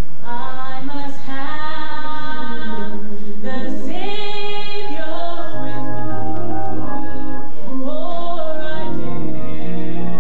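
A woman singing a gospel song in a slow, held melody, with low sustained accompaniment notes coming in about halfway through.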